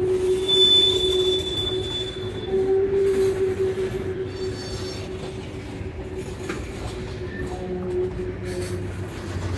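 Freight cars rolling past on steel rails with steady wheel squeal. A brief, higher-pitched squeal rises over it from about half a second to two seconds in.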